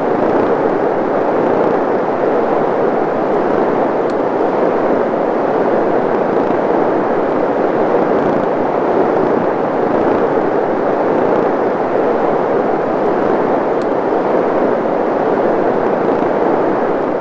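Spawning chorus of Gulf corvina recorded underwater: countless males calling at once, drumming their swim bladders, merged into a loud, dense, unbroken din. It stops abruptly at the very end.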